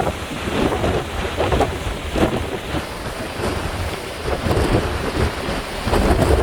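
Typhoon-force wind buffeting the microphone in heavy, irregular gusts over the noise of big waves breaking on the shore.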